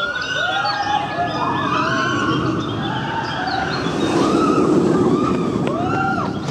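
Riders screaming on a roller coaster, many shrieks overlapping, over the rumble of the train running along its steel track, which swells about four seconds in. Birds chirp faintly in the background.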